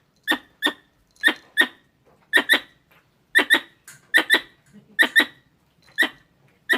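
Squirrel calling: short, sharp chirps, mostly in quick pairs, repeating about once a second.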